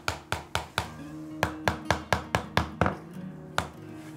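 Steel-headed hammer tapping walnut joinery pieces together, driving the parts of the tray home: about a dozen short, sharp taps in quick runs, with a brief pause about a second in. Soft acoustic guitar music plays underneath.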